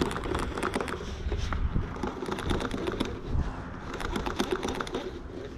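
Irregular small clicks and rattles from hands handling a baitcasting reel and rod, over a low wind rumble on the microphone.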